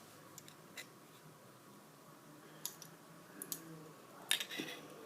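Faint, scattered clicks and light scrapes from a Zippo lighter's metal insert being handled while its cotton packing is pulled out. The loudest few clicks come about four seconds in.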